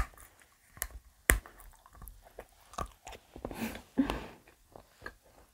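Bites into a hollow white chocolate shell, picked up by a close clip-on microphone: a sharp snap at the start and another just over a second in, then chewing with wet mouth sounds.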